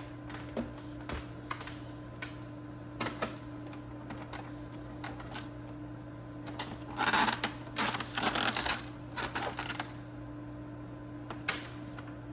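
Scattered clicks and light plastic rattling from hands working on an Epson L1800 inkjet printer, with a louder stretch of rattling and scraping about seven to ten seconds in, over a steady low hum.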